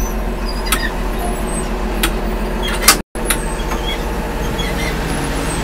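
MSRTC bus's diesel engine running, heard from inside the passenger cabin as a steady low hum, with a few sharp knocks or rattles. The sound cuts out for a moment about halfway through.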